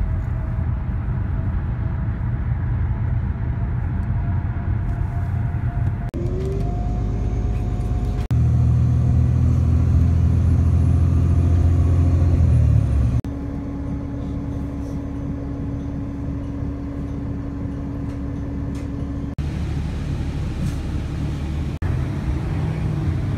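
Road noise from inside a moving car, followed by jet airliners flying low overhead. The sound is a steady low rumble that changes abruptly several times and is loudest for several seconds in the middle.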